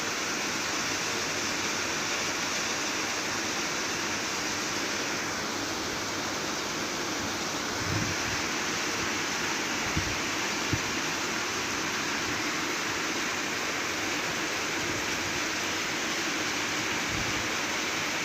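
Steady heavy rain, an even hiss with no change in level, with a few dull low thumps about halfway through and again near the end.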